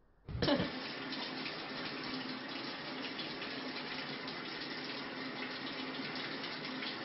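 Steady rushing of running water, starting abruptly about a third of a second in with a brief low thump.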